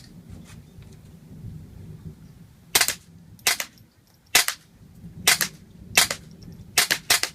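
Gemtech Mist-22 integrally suppressed .22 rifle firing CCI subsonic rounds: about seven quick sharp cracks roughly a second apart, starting about three seconds in. Most of each crack is the bullet hitting a plastic popper target, not the muzzle.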